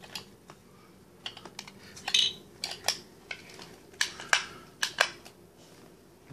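Hard plastic Lego Duplo pieces clicking and knocking together as they are handled and stacked: a dozen or so sharp, irregular clicks.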